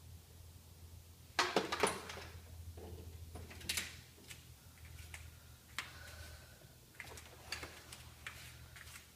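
Scattered knocks, clicks and rattles of objects being handled, the loudest cluster about a second and a half in, with a faint steady low hum underneath; no vacuum motor is running.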